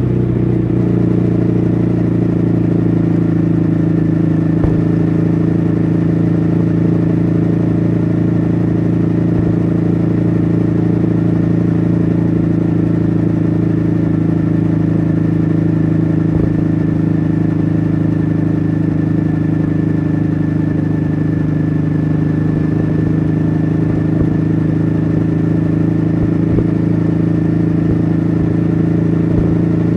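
2014 Ducati Hyperstrada's 821 cc L-twin engine running under way at steady revs, its note holding an even pitch.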